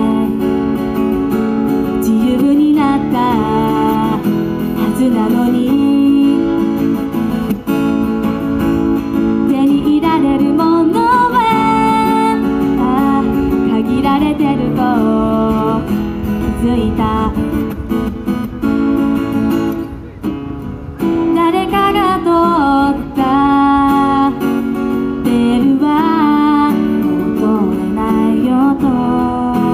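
A woman singing a song to her own strummed acoustic guitar, the voice carrying the melody over steady chords.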